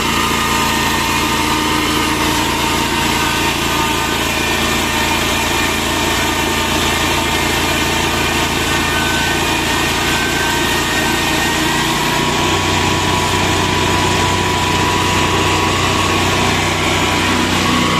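Portable horizontal band sawmill running with a steady mechanical hum and high whining tones. About twelve seconds in, the low hum shifts pitch and grows slightly stronger.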